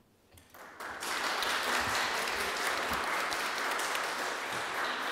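Applause from a room of people clapping, starting about a second in and building quickly to a steady level.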